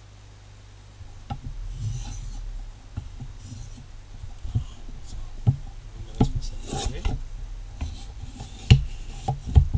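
Steel knife blade scraping over a wet Japanese water stone in a few gritty strokes. Then come sharp clicks and hard knocks as the knife is set down and a stone block is put on the stone, the loudest knock near the end.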